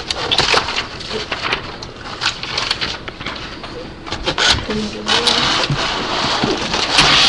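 A box being opened by hand: packaging rustling and crinkling, with irregular crackles, scrapes and clicks that grow into a denser, steadier rustle in the last couple of seconds.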